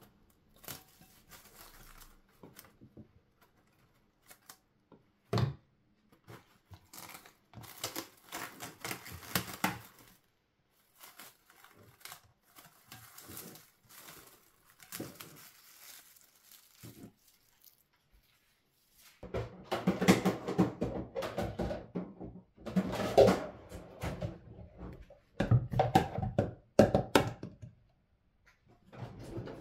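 Plastic cling film being pulled off its roll, stretched and crinkled over a bowl, with a single thump about five seconds in. The rustling and knocking grow louder and denser in the last third.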